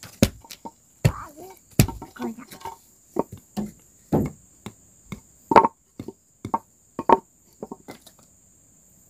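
Irregular wooden knocks and clacks, about a dozen sharp ones, as pieces of scrap board and wooden blocks are knocked and set against each other by hand.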